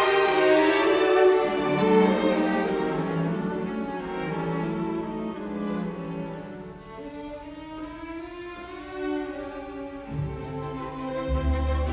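Background music with bowed strings: violins and cellos holding slow, sustained notes, quieter in the middle, with a deep bass note coming in near the end.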